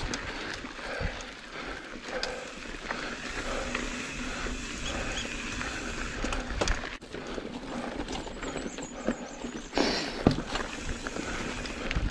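Mountain bike climbing a dirt singletrack: tyres rolling over the dirt, with scattered knocks and rattles from the bike.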